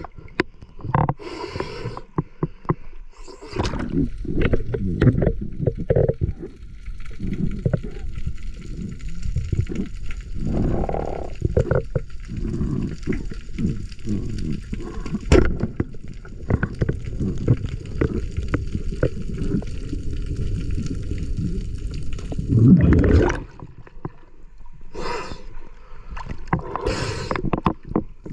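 Muffled underwater sound of shore spearfishing: water gurgling and bubbling with many small clicks and knocks, and louder surges of rushing water now and then.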